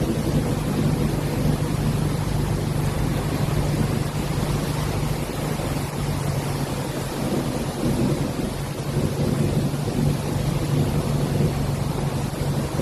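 Steady rushing noise with a continuous low engine-like hum underneath, unchanging throughout.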